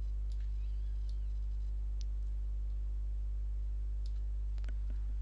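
Steady low electrical hum on the recording, with a handful of faint computer mouse clicks spread through it.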